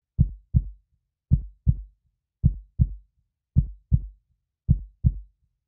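Slow, steady heartbeat: five even lub-dub double thumps, about one a second.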